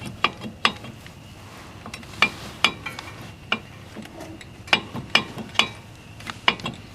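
Metal hand tools clinking and clanking in irregular sharp knocks, a dozen or more, the sound of tools and sockets being handled during brake and wheel-hub work.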